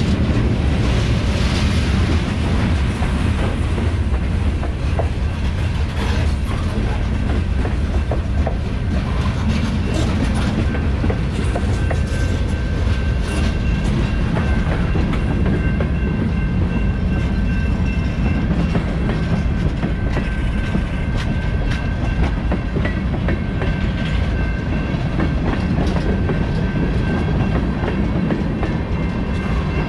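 Freight train cars rolling steadily past: a continuous heavy rumble, with the wheels clicking irregularly over the rail joints.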